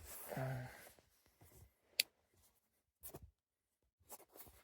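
A brief murmur of voice, then a single sharp click about two seconds in, followed by a few faint scraping, handling sounds.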